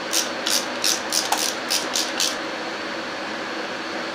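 Ratchet wrench clicking in short back-strokes, about three clicks a second, as a spark plug is loosened and spun out of the cylinder head. The clicking stops a little over two seconds in, leaving a steady low hum.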